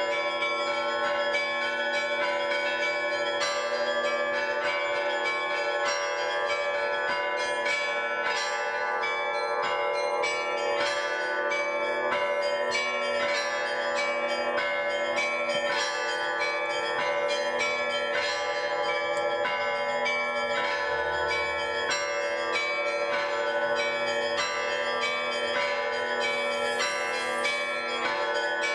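Several church bells rung together in a fast, continuous Russian-style peal: quick repeated strikes over a lingering hum of ringing tones.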